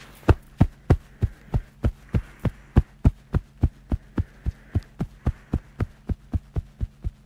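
A rapid, evenly spaced run of thumps, about three a second, over a faint steady hum.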